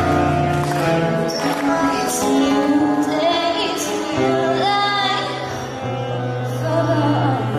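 A live song: a woman singing into a microphone, with acoustic guitar and saxophone accompaniment and a steady bass line.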